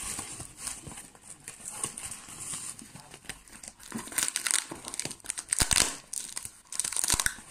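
Paper and plastic packing material crinkling and rustling as it is handled and pulled apart, with several louder bursts in the second half.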